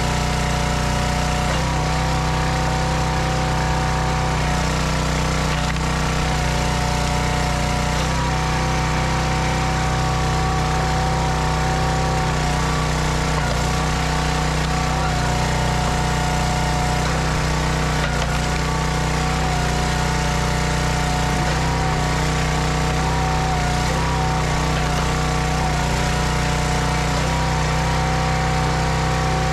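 Log splitter's engine running steadily under load while its hydraulic ram splits maple rounds against the wedge.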